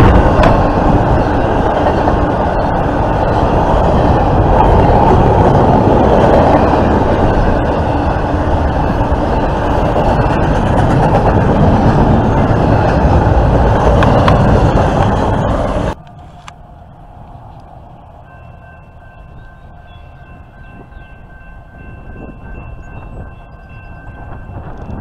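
Intermodal freight train's well cars rolling past close by at speed: a loud, steady rush of steel wheels on rail. It cuts off suddenly about two-thirds of the way through, leaving quiet outdoor ambience with a faint steady high tone.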